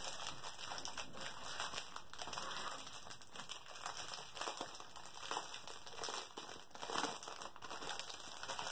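Clear plastic bag crinkling and crackling in irregular bursts as hands handle it and work it open.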